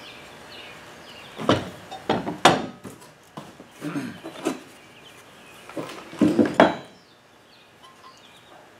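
Steel mounting plates from an air spring kit being handled and set down against each other and the cardboard box: scattered clunks and knocks, quieter near the end.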